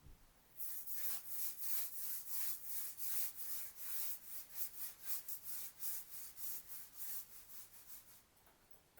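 Rhythmic back-and-forth rubbing strokes by hand, about three or four a second, starting about half a second in and easing off near the end.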